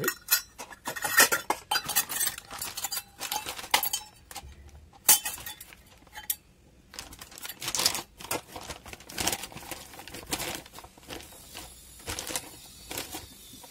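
Stainless steel cup and wire-mesh sieve clinking and knocking against each other and a plate as cocoa powder is tipped in for sifting. The knocks are irregular and sharp, with the loudest about a second in and again about five seconds in.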